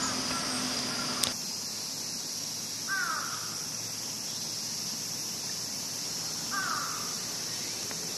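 A crow cawing twice, a few seconds apart, over a steady high hiss, with a short click about a second in.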